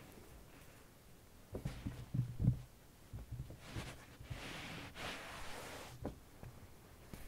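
Faint handling noise close to the microphone: a few soft low thumps, then about two seconds of rustling, as a hand and sleeve move on the carpet.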